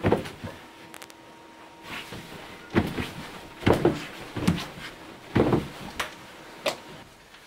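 A bed taking irregular thumps, with rustling, as a body tosses and kicks on it: about six knocks spaced roughly a second apart.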